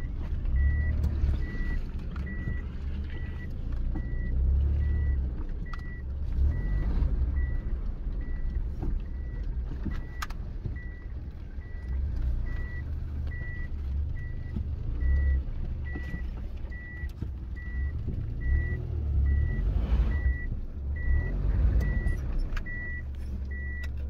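Low engine and road rumble inside the cabin of a 2006 Mitsubishi Pajero iO with a 2.0-litre GDI petrol engine, under way. A dashboard warning chime beeps steadily at about one and a half beeps a second.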